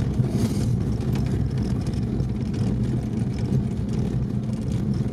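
ZAZ-968M's air-cooled V4 engine running steadily while driving, heard from inside the cabin together with tyre and body noise on a rough, muddy dirt track.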